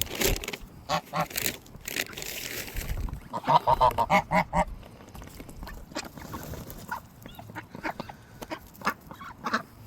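Geese and ducks calling, with a quick run of about seven honking calls about three and a half seconds in, and scattered short clicks of the birds pecking at watermelon.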